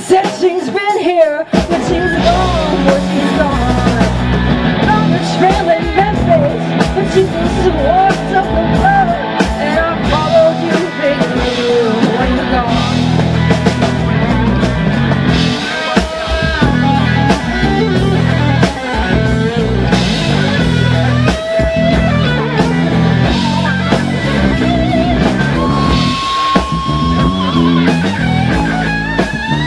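Live rock band playing, with electric bass, electric guitar and drum kit, and a singer's voice over them. The full band comes in about a second and a half in.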